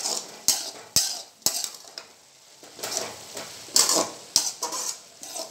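Spatula stirring onion-tomato masala in a stainless steel kadai: sharp clacks against the pan about half a second apart, a short lull, then scraping strokes and a couple more knocks, over a soft frying sizzle.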